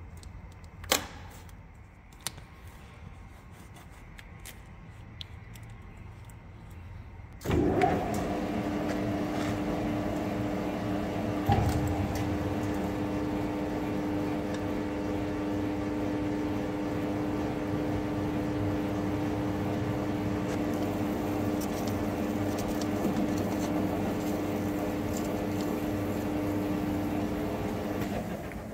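A few sharp tearing clicks of tape being pulled and laid on, then about seven seconds in a Hafco TM-26120G centre lathe starts up and runs steadily with a gear whine, spinning a 6-inch chrome bar in the steady rest.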